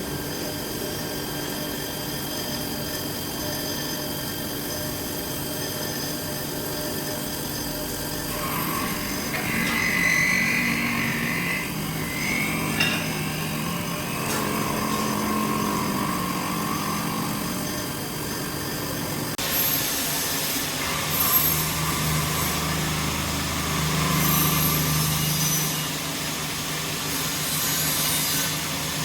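CNC drilling machine's spindle running a milling cutter through a workpiece: a steady machine hum with cutting noise. The cutting sound changes in pitch and loudness a few times as the cut goes on, sharpening about a third of the way in and again about two-thirds through.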